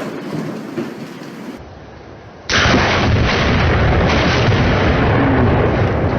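Thunder from a nearby lightning strike: a sudden loud crack about two and a half seconds in, then a sustained, loud rumble. Before it, a fading noisy tail runs into a brief lull.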